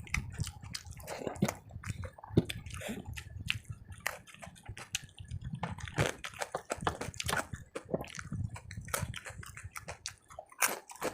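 Close-up chewing and wet mouth sounds of a person eating rice with curry: irregular smacks, clicks and squishes.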